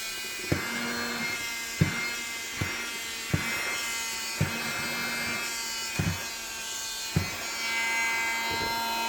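Small cordless handheld keyboard vacuum running with a steady whine, its suction being tried on a sheet of paper. Short light clicks come at irregular intervals of about a second over it.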